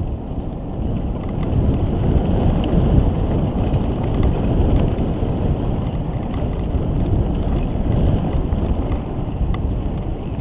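Mountain bike descending a dirt trail at speed: a steady rumble of tyres on dirt mixed with wind buffeting the camera microphone, with scattered light ticks and rattles.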